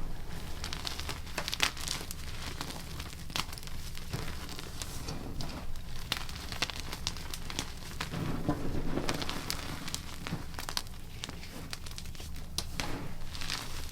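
Blocks of gym chalk crushed and crumbled by hand: a continuous run of dry crunches and small crackles, with denser clusters every few seconds.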